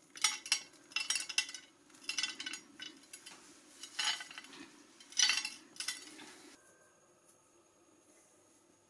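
Chopped pistachio pieces sprinkled from the hand, clicking and pattering onto a white ceramic serving plate in several short bursts that stop about six and a half seconds in.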